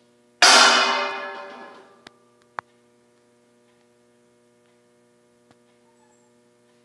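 Metal dish dropped onto a hard floor: one loud clang that rings and dies away over about a second and a half, followed by a small click about two seconds later.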